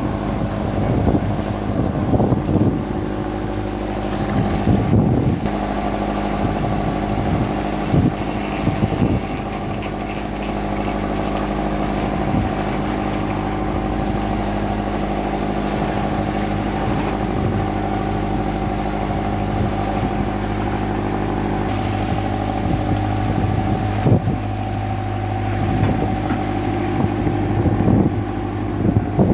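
A tuna longline fishing boat's engine running with a steady drone, with scattered knocks and clatters over it.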